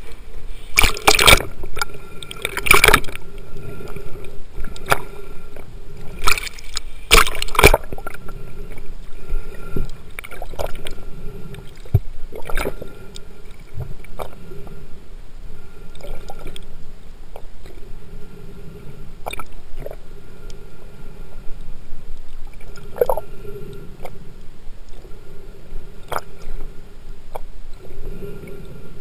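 Choppy water splashing over a waterproof camera at the surface, with several loud splashes in the first eight seconds. After that, muffled underwater gurgling with scattered sharp clicks and a faint steady hum.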